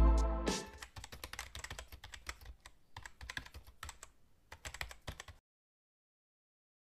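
Typing sound effect: quick, irregular key clicks for about five seconds, following the last notes of a music track, which die away in the first half-second.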